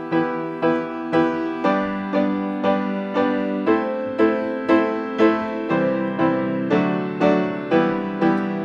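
Keyboard playing an instrumental intro: the same chord struck about twice a second, moving to a new chord about every two seconds.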